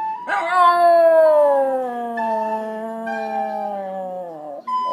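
A pet dog howls one long note that slowly falls in pitch, 'singing' along to a flute playing steady notes underneath. A second howl begins at the very end.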